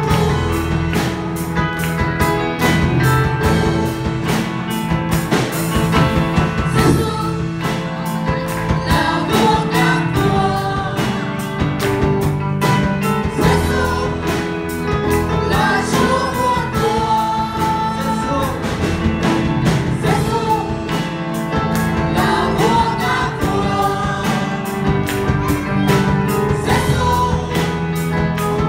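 A woman and a man singing a Vietnamese Protestant hymn into microphones, backed by a live band of drum kit, electric guitar and keyboard with a steady beat.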